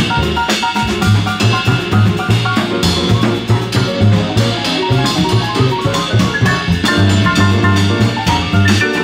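Instrumental jazz recording played by a small band: a busy drum-kit rhythm with cymbals, a repeating bass line, and short piano notes over it.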